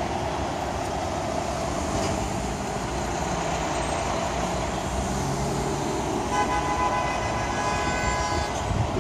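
Steady rumble of slow city traffic with idling and creeping engines. About six seconds in, a vehicle horn sounds and holds for about two seconds.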